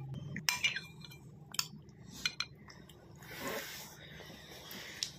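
Spoon clinking against a bowl while a toddler is spoon-fed: a few light, separate clinks.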